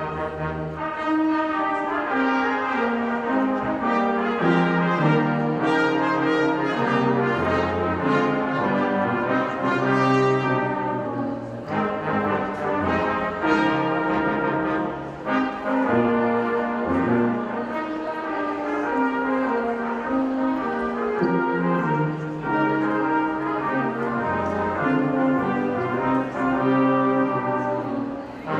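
A brass ensemble playing music, several instruments holding chords together and moving from chord to chord.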